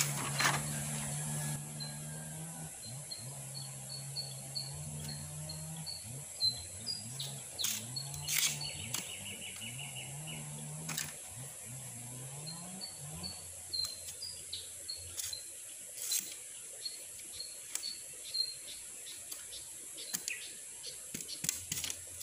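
Bamboo being split into thin strips with an itak (bolo knife): scattered sharp knocks and cracks. A bird calls in quick runs of short high chirps over a steady high hiss, with a low hum that wavers in pitch through the first half.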